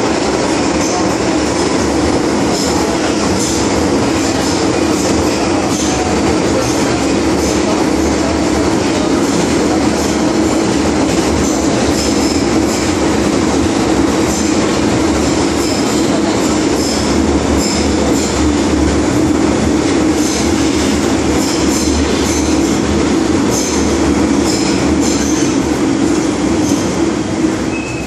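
MTR M-Train electric multiple unit running at speed through a tunnel, heard from inside the car: a loud, steady rumble of wheels on rail with high-pitched wheel squeals coming and going.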